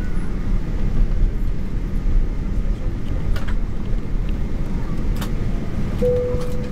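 Steady low rumble of a jet airliner's cabin as the plane rolls on the ground, engines and wheels heard through the fuselage, with a short steady tone near the end.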